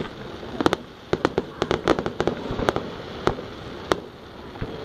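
Fireworks display: an irregular string of sharp bangs and crackling pops, several a second, as shells and crackle effects burst.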